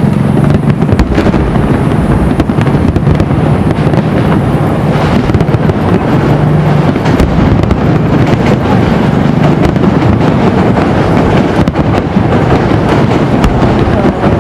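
Fireworks going off in a dense, continuous barrage of cracks and bangs.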